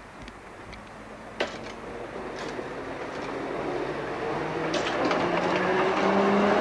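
Tram approaching and passing close by, growing steadily louder, with a steady whine that rises slowly in pitch. There is a sharp click about a second and a half in, and a few lighter clicks near five seconds.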